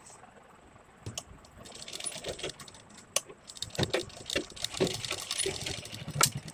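Fabric pieces and lace trim rustling and being handled at a sewing machine, with irregular clicks and light taps from the machine's presser foot and metal parts.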